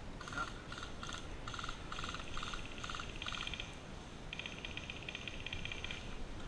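Calling frogs or insects in the woods: short pulsed trills repeating two to three times a second, then longer, higher trills from about three seconds in.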